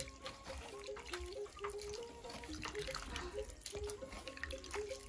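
Hands sloshing and rubbing small dried silverfish in water in a metal basin: irregular splashes and drips as the soaked fish are washed. Soft background music with a simple stepping melody plays underneath.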